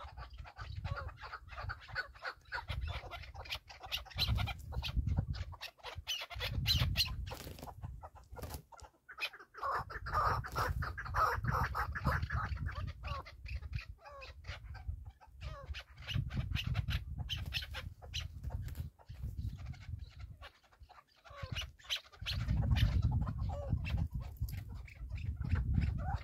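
Wind buffeting the microphone in gusts, with small ground-feeding game birds giving soft clucking calls and scratching in dry grass.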